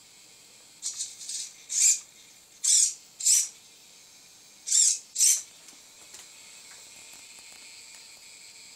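Small RC servos driving a camera gimbal, whirring in short, quick bursts, about seven moves in the first five and a half seconds, several in pairs. After that only a faint steady hiss remains.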